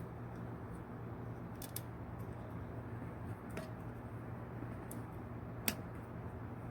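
Small clicks and handling noises of a plastic smoke detector being worked on by hand, a few scattered clicks with the sharpest near the end.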